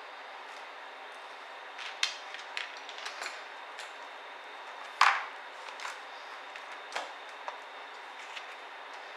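Small sharp clicks and taps of laptop parts and tools being handled during disassembly, irregularly spaced over a steady hiss, the loudest about five seconds in.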